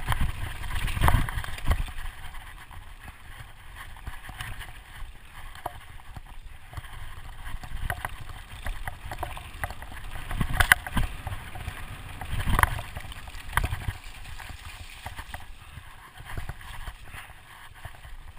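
Specialized Enduro Expert full-suspension mountain bike descending a dirt and gravel trail at speed: tyre rumble and wind on the microphone, with sharp knocks and rattles from the bike over bumps, several of them loud.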